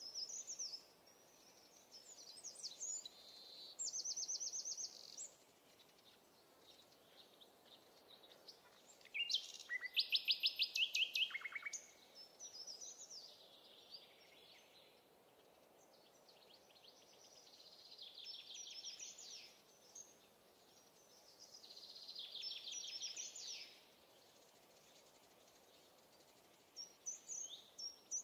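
Songbirds singing over a faint steady background: several separate songs of quick repeated notes, the loudest a rapid trill that drops lower in pitch about nine to twelve seconds in, with shorter trills around four, eighteen and twenty-two seconds in.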